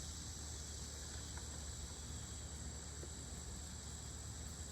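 Faint, steady background noise: an even high hiss and a low hum, with no distinct events.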